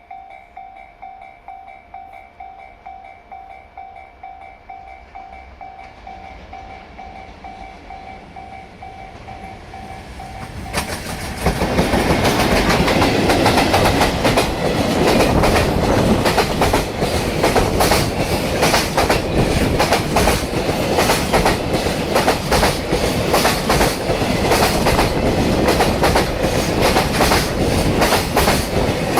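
A level-crossing warning bell rings in a steady pulse as a JR Freight train approaches. About eleven seconds in, the train reaches the crossing and the loud, rhythmic clatter of its wheels over the rail joints takes over. The train is an EF210 electric locomotive leading an unpowered EF65 locomotive and a string of container flat wagons.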